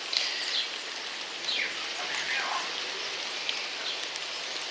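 Steady rain falling and dripping on the ground and surfaces. A few short bird calls slide downward in pitch over it.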